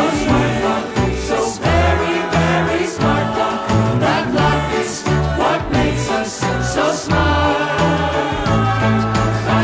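Upbeat jingle music with a steady beat, bass line and singing.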